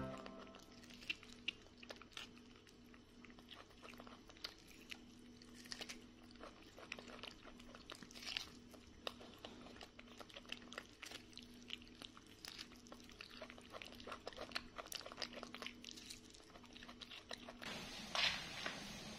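Baby macaque biting and chewing kernels off a piece of corn on the cob: soft, irregular little crunching clicks. Near the end a louder scraping begins, a broom sweeping a concrete floor.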